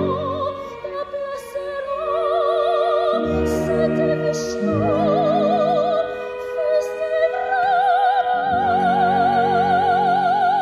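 Soprano singing an operatic line with wide vibrato over an orchestra's sustained chords. She moves between several held notes and then sustains a long high note through the last few seconds.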